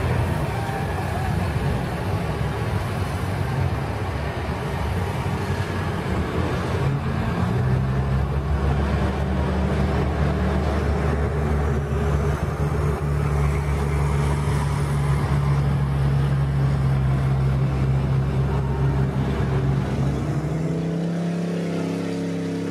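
Vehicle engines running with a steady, even drone that settles about eight seconds in; near the end the deepest hum drops away and a higher steady tone takes over.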